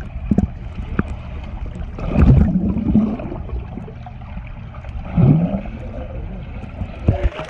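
Muffled water and bubbling heard from below the surface of a swimming pool as a child swims underwater, with a low rumble and little treble. It swells louder twice, about two and five seconds in.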